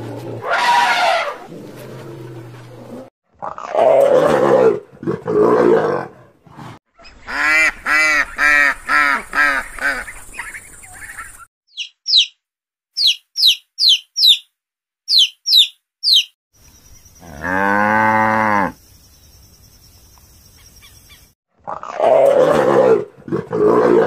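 A string of different animal calls, one after another. Harsh calls come first, then six short pitched calls in quick succession, then baby chicks peeping in quick high chirps, then a single long low call that rises and falls, and finally another harsh call.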